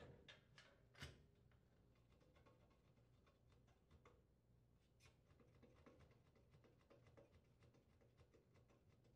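Faint knocks and light rattles of a Lennox furnace's sheet-metal access panels being set back in place, with one sharper knock about a second in and a run of small taps later.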